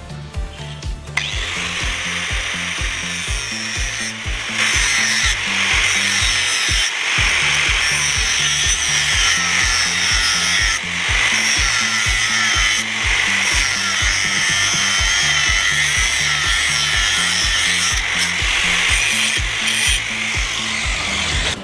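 A handheld power tool grinding against a workpiece, starting about a second in as a loud, steady, harsh high-pitched grind that gets louder a few seconds later. Background music with a steady bass beat runs underneath.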